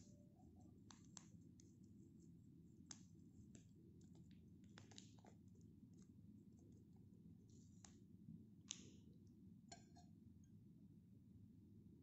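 Near silence: faint steady low room hum with a few scattered soft clicks and ticks, the loudest about three-quarters of the way through.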